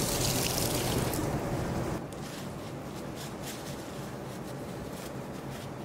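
Tap water running and splashing over hands as they are rinsed, cutting off about two seconds in. After that, faint soft crinkles of a paper napkin as the hands are dried.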